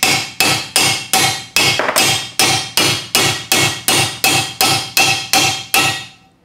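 Ball-peen hammer striking a metal driver in steady, even blows, about two and a half a second, driving a T5 five-speed transmission's front bearing into its bore in the aluminium case until it sits flush. Each blow gives a short metallic ring; the hammering stops about six seconds in.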